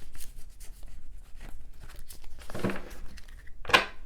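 Oracle cards being shuffled by hand: a run of quick papery rustles and clicks, with louder bursts about two and a half and three and a half seconds in.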